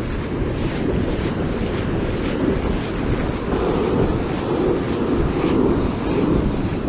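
Strong wind buffeting the microphone over breaking surf, a steady rushing roar.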